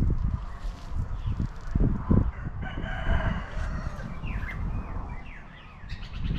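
A rooster crowing once, a drawn-out call of about a second near the middle, with small birds chirping briefly after it. Low rumbling bumps run underneath.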